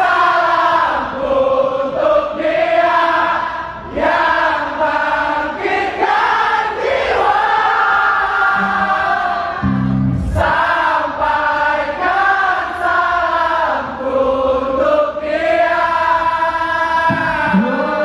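Concert audience singing along with a live pop-rock band, the melody carried by many voices at once, with a heavy low drum hit about halfway through.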